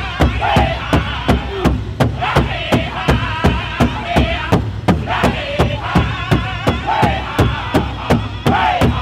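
Powwow drum group singing in high, strained voices over a big powwow drum struck together in a steady beat, about three to four beats a second. The vocal lines repeatedly rise and fall in descending phrases.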